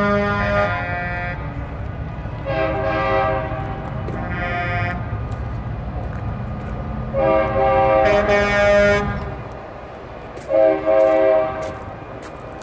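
Semi-truck air horns blowing in long blasts of several notes at once, five times, each lasting one to two seconds, over the low rumble of the trucks' diesel engines.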